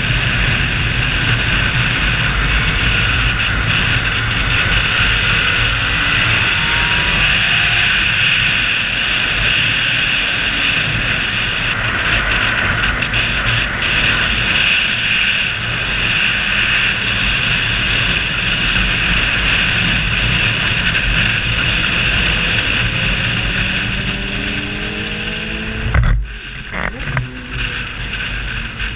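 Heavy wind noise buffeting a helmet-mounted camera at speed on a sport motorcycle, with the bike's engine running underneath. Near the end there is a sharp thump, after which the wind eases and the engine's rising note comes through more clearly.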